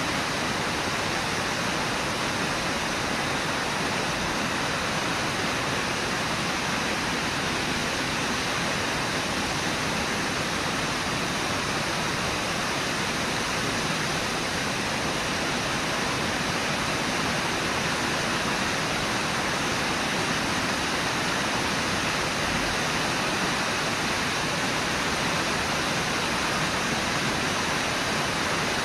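Steady rush of the Brooks River's water pouring over Brooks Falls, an even, unbroken wash of water noise.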